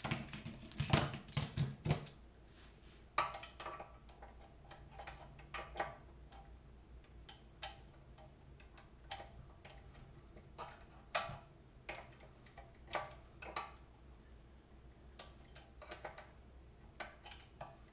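Light irregular metal clicks, taps and scrapes of screwdrivers working inside the open crankcase of a 6.5 hp Honda-clone engine, prying out the washer behind the governor. A faint steady low hum sits underneath.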